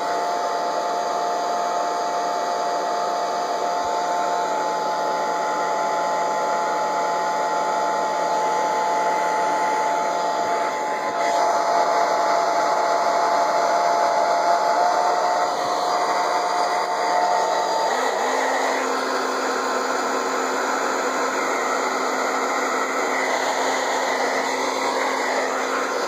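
Hot Tools Professional hair dryer running steadily, a motor whine over the rush of blown air as it heats a plastic toy part. The whine's pitch changes about eighteen seconds in, settling to a lower steady hum.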